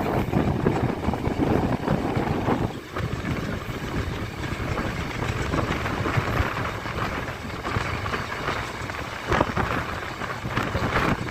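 Yal Devi passenger train running on the rails: a steady rumble and rattle from the carriage, with rushing wind buffeting the microphone.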